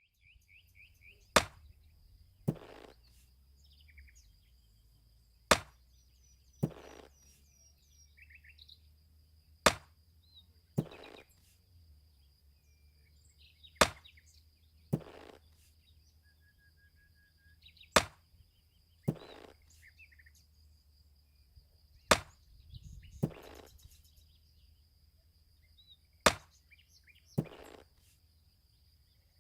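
Axe chopping wood, heard seven times about every four seconds: each time a sharp crack, then about a second later a longer, duller thud. Birds chirp faintly throughout, over a steady high-pitched tone.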